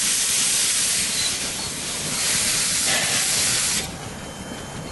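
Steam locomotive letting off steam in two long loud hisses, the second cutting off sharply near the end.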